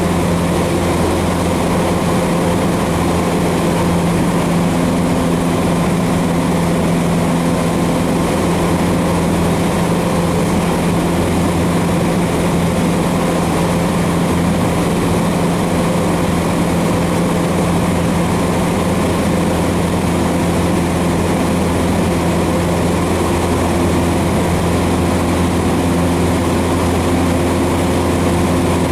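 Cessna 150's four-cylinder Continental O-200 engine and propeller droning steadily in flight, heard inside the small cabin, with rushing airflow noise underneath.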